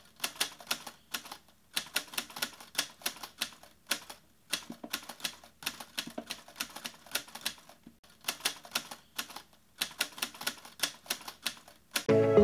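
Typewriter sound effect: runs of rapid key clicks broken by short pauses. Music starts just before the end.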